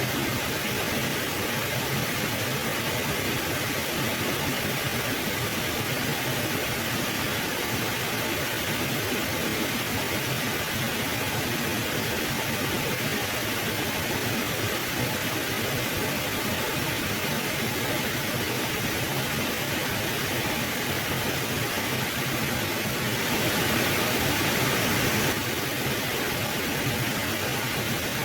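River water flowing steadily, a dense, even rush of water noise. It swells slightly for about two seconds late on.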